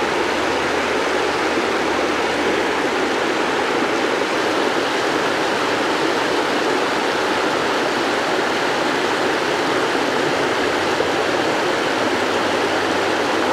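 Water rushing steadily over a dam spillway, an even, unbroken whitewater rush.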